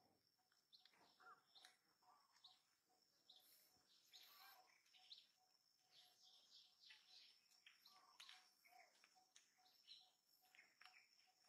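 Near silence: faint outdoor ambience with scattered short, high chirps and a thin steady high whine.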